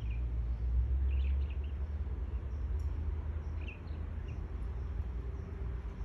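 Small birds chirping, a few short high chirps in small clusters, over a steady low outdoor rumble.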